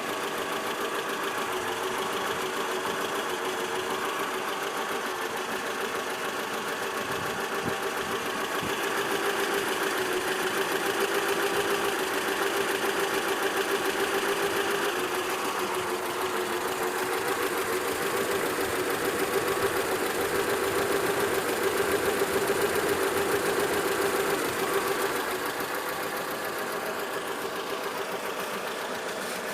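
ZMZ-402 inline-four petrol engine running with a rapid, even knock, typical of the play between piston pins and connecting rods that the owner found in all four cylinders. It grows louder for a stretch in the middle, then settles back.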